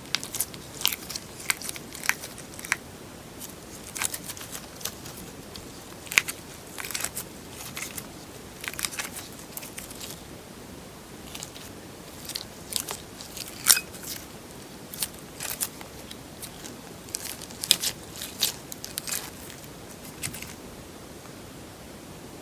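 Slime mixed with paper clay being pressed and squeezed by hand, giving off irregular crisp crackling and popping clicks over a steady low hiss.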